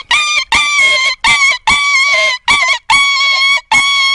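A man's vocal animal imitation: a run of short, loud, high-pitched honks, about two a second, each held at one steady pitch and ending with a slight dip.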